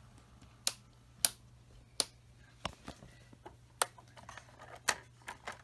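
Model train locomotive misbehaving on sectional track: about seven sharp, irregularly spaced clicks and clacks over a faint steady low hum.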